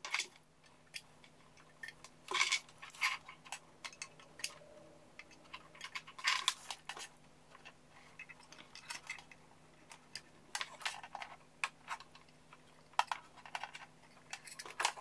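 Metal banana plugs clinking and clicking, irregular and scattered, as they are handled and pushed into an amplifier's speaker binding posts.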